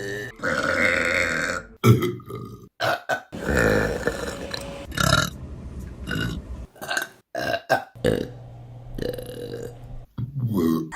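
Women burping in quick succession, one burp after another. Some are long and drawn out, others short, joined by abrupt cuts.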